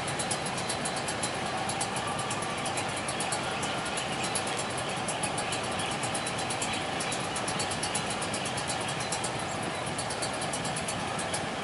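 Railway level-crossing warning bell ringing with rapid, regular strikes over idling motorcycle and car engines. The bell stops near the end.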